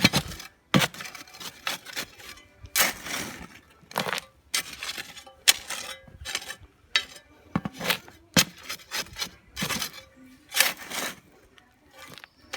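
Dry cement and gravel aggregate being turned over by hand with a tool: irregular scraping and gritty rasps mixed with sharp clinks and knocks of stones against the container. The dry mix is being blended before any water goes in.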